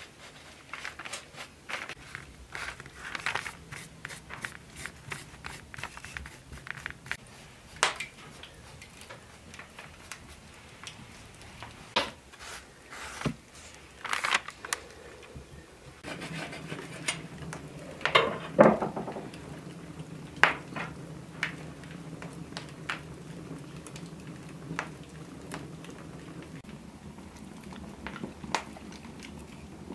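Close handling sounds: paper rustling and crinkling, with scattered light clicks and taps as red painted heart cutouts are pressed onto and lifted from a sheet of paper. About halfway through a low steady hum comes in underneath, and a louder clatter follows a couple of seconds later.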